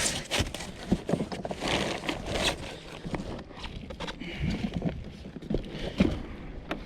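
Irregular clacks, knocks and rustling as items in a curbside trash pile are pulled about and handled.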